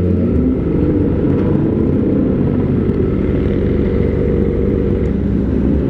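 Kawasaki ZX-25R's inline-four engine running through an Austin Racing aftermarket silencer, a steady low-pitched rumble.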